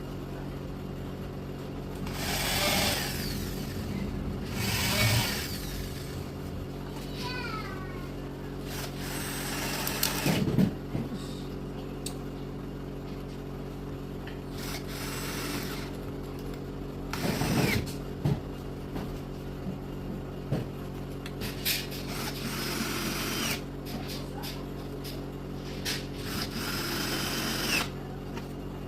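Power drill driving screws into board in about six short bursts, each lasting a second or two, over a steady background hum.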